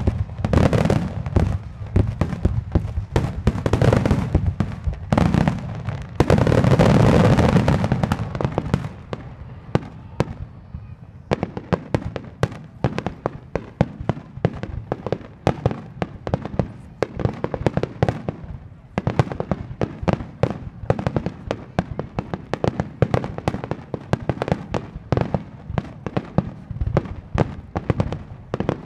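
Fireworks display: many shells going off rapidly with dense bangs and crackling through the first eight seconds or so. After a brief lull about nine seconds in, a quieter steady run of separate sharp bangs and pops follows.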